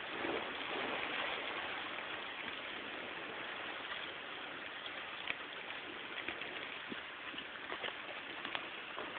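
Heavy rain falling steadily, with scattered sharp ticks of individual drops striking close by.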